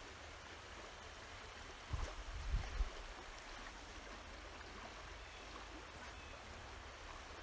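Jordan River current flowing steadily past the bank, an even hiss of moving water. A few low bumps come through about two seconds in.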